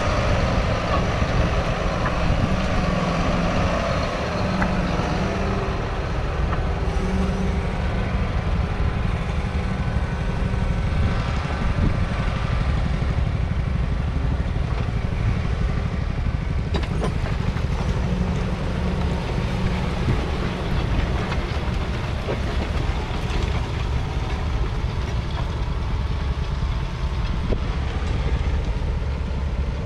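John Deere 6215R tractor's 6.8-litre six-cylinder diesel engine running steadily.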